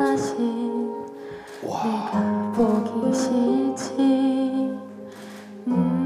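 A slow ballad with guitar accompaniment and a woman singing.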